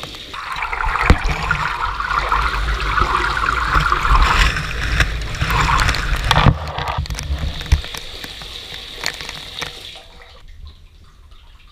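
Shower water spraying and splashing onto a tiled floor and a wet cat, heard through a GoPro's waterproof housing, with scattered knocks. The water cuts off about ten seconds in as the taps are turned off.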